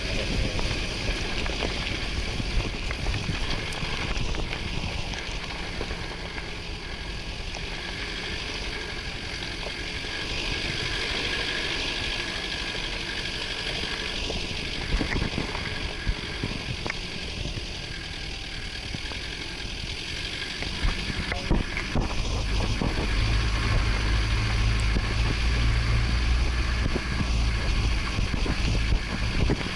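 Four-wheel-drive vehicle driving on an off-road mountain track: steady engine and driving noise with scattered small knocks. The engine's low hum grows louder about two-thirds of the way through.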